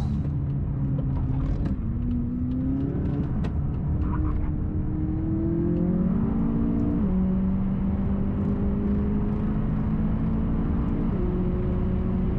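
McLaren 570S's twin-turbo V8, heard from inside the cabin while the car is driven hard on track. The engine note climbs steadily through a gear for several seconds, drops sharply at an upshift about seven seconds in, then runs steadily at speed.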